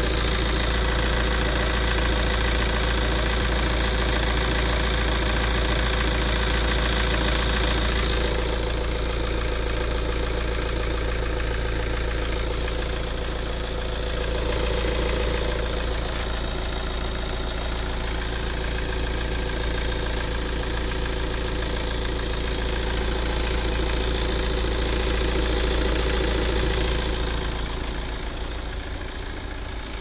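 Tata Safari DICOR 2.2 four-cylinder common-rail turbo-diesel idling steadily with the bonnet open. The owner presents it as a healthy, well-maintained engine: no knocking, no misfire, no hunting.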